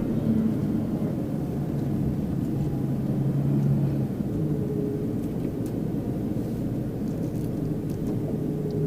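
Mitsubishi Pajero Mini kei car driving, its engine and road noise heard from inside the cabin as a steady low hum. The engine note rises a little about three seconds in, then eases back.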